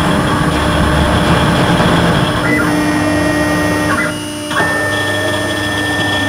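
CNC engraving router's spindle cutting into a metal block: a rough, grinding cut at first, then a steady whine from about two and a half seconds in. The sound dips briefly about four seconds in.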